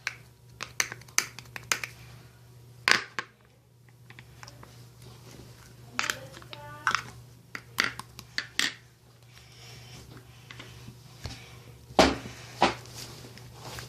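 Irregular sharp clicks and knocks of objects being handled, with louder knocks about three seconds in and near the end.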